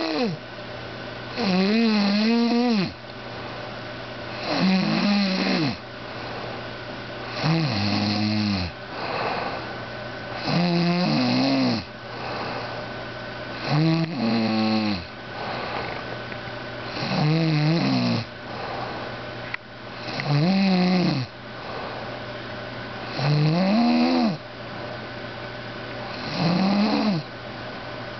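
Loud snoring from a sleeper: a long pitched snore about every three seconds, nine in all, each rising and then falling in pitch.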